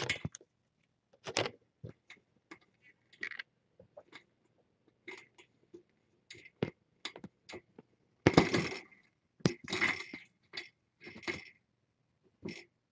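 Irregular taps, clicks and rustles close to the microphone, the loudest a rough scuffle just after eight seconds in.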